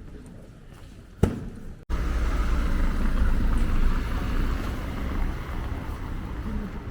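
City street ambience with a steady low rumble of traffic. There is one sharp knock about a second in, and the sound cuts off abruptly and comes back louder just before two seconds.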